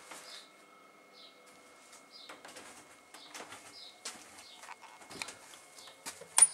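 Faint rustling and scattered light clicks of a handheld camera being carried through a room, with one sharp click near the end.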